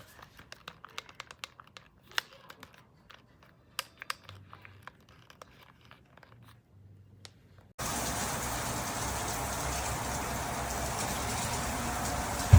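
Scattered small clicks and crinkling of handling, then about eight seconds in a high-pressure RV shower head's water spray starts abruptly and runs as a steady hiss.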